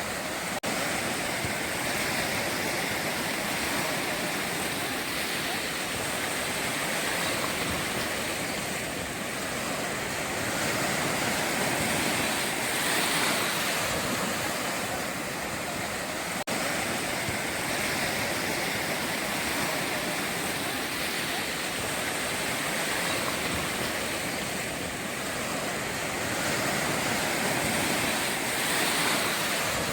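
Ocean waves breaking on the shore: a continuous rush of surf that swells and eases every few seconds.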